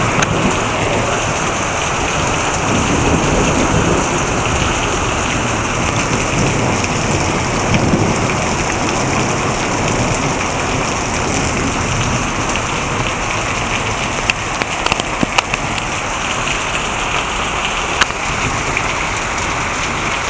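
Heavy thunderstorm rain pouring down hard and steadily, with a low rumble of thunder under it in the first half. A few sharp ticks stand out near the end.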